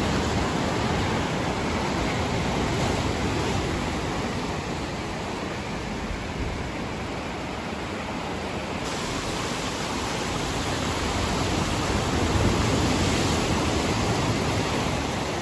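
Ocean surf washing and breaking around coastal rocks, a dense rush of churning water that slowly swells and eases.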